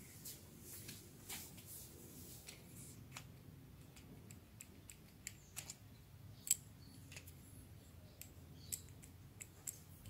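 Faint, scattered clicks and taps of hard plastic parts being handled: a 3D-printed airsoft impact grenade picked up and its cap taken off the body, with one slightly louder click about six and a half seconds in.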